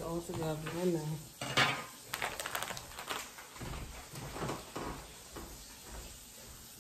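A woman's voice for about the first second, then dishes and metal utensils being handled in a kitchen: a run of quick clinks and knocks, thinning out to softer knocks in the second half.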